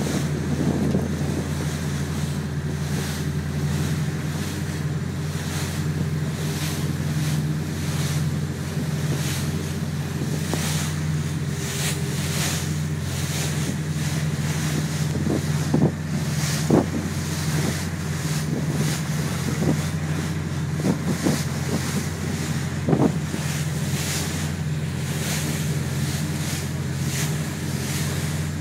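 A motorboat's engine runs steadily under way, with water rushing and splashing along the hull and wind buffeting the microphone. A few short, louder thumps come about halfway through and once more later, likely the hull knocking on small waves.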